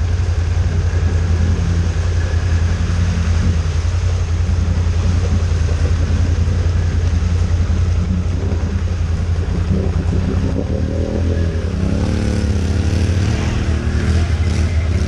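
ATV engines running through deep mud and water: a steady low engine drone, with an engine revving up and down briefly about eleven seconds in.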